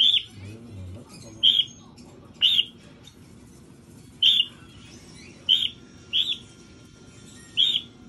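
Cockatiel giving short, sharp chirping calls, seven in all, spaced irregularly about a second apart.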